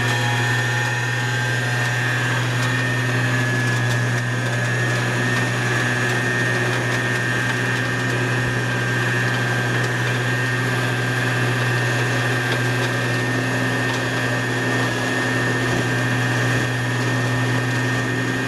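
Flatbed tow truck's hydraulic winch system running under the control lever, paying out cable as a pickup truck rolls down the tilted bed: a steady low hum with a steady high whine over it.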